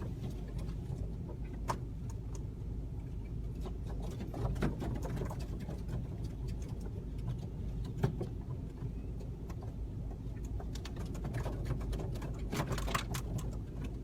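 Steady low car hum with scattered short calls and clicks from a large flock of birds, busiest near the end.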